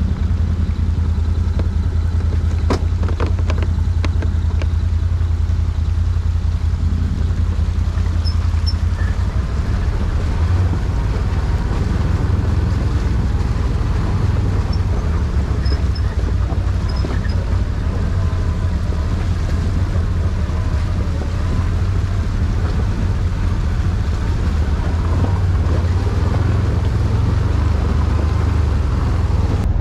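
ATV engine running steadily, a low drone that barely changes throughout.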